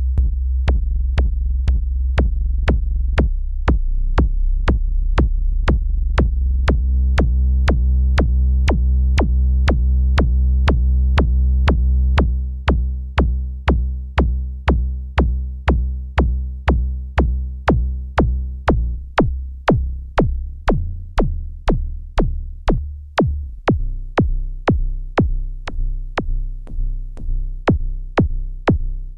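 Behringer Neutron analog synthesizer playing a deep, sustained bass with a buzzy mid-range tone layered on top in the middle, over a steady drum-machine beat with sharp clicks about twice a second. From about twelve seconds in, the bass breaks into short repeated notes in time with the beat.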